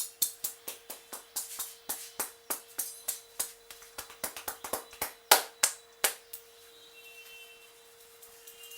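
Rhythmic hand slaps and taps on a head during an Indian head massage, about five a second, with one loud slap just after five seconds; the slapping stops about six seconds in.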